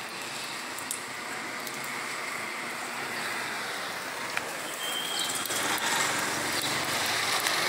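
Street traffic on rain-wet roads: a steady hiss of tyres on wet asphalt, growing louder in the second half.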